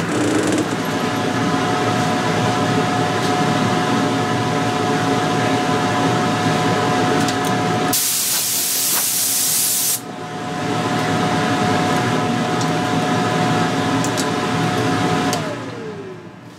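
Spirit 20 HP two-stroke outboard running steadily on a test stand, with a loud hiss for about two seconds partway through. Near the end the engine shuts off and its pitch falls away as it winds down.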